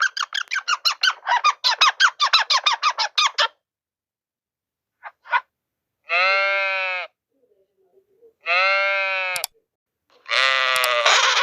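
Animal calls: a fast series of short, squeaky calls at about six a second, then after a pause two long, evenly pitched calls of about a second each, and another call starting near the end.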